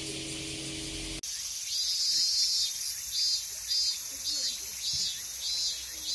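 Cicadas singing: first a steady high buzz over a low steady hum, then, after an abrupt cut about a second in, a louder cicada chorus that swells in regular pulses, about one and a half a second.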